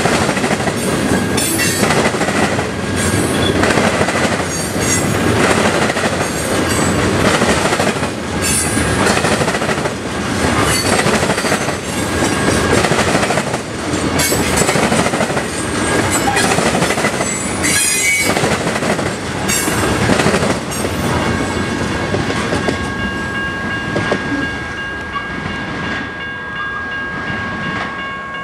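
Freight train cars rolling through a grade crossing, wheels clattering with occasional high squeals. The train noise fades about three-quarters of the way through, leaving the crossing's bell ringing steadily.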